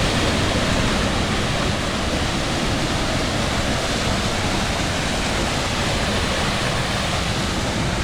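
Waterfall and river in spate after heavy rain: a steady, loud rush of water.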